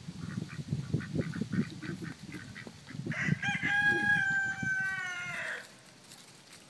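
A rooster crows once, about three seconds in: one long call of roughly two and a half seconds that holds its pitch and then slides down at the end. Before it, other poultry give short quick calls several times a second.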